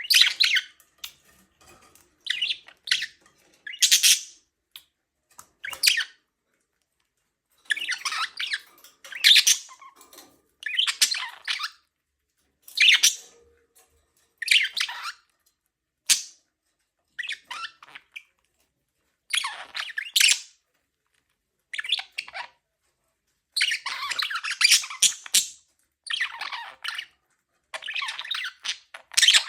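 Pet budgerigars chirping and chattering in short high-pitched bursts with brief pauses, some calls harsher and squawk-like.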